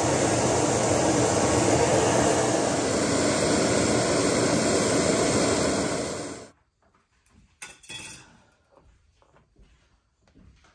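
Steady loud rushing noise that cuts off suddenly about six and a half seconds in. After that there are only faint scattered clicks and knocks.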